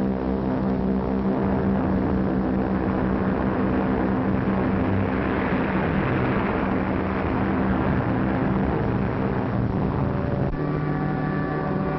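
Propeller aircraft engines droning steadily, as bombers in flight. A rushing noise swells in the middle and fades, and the engine tone changes abruptly about ten and a half seconds in.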